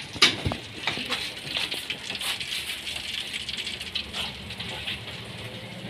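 A metal wire strainer clinks and rattles against a wok, with sharp knocks strongest in the first second, while skewered street food sizzles and crackles in hot oil.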